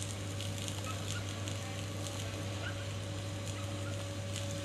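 Steady low hum under an even hiss, with faint short chirps and ticks scattered through it.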